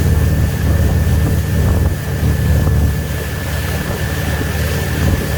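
Wakesurf boat's engine running steadily under way, a low rumble with a thin steady whine above it, mixed with wind on the microphone.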